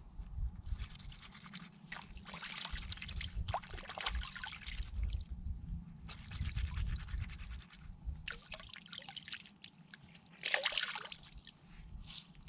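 Hands being washed with water: water pouring and dripping, with several bursts of wet rubbing and scrubbing.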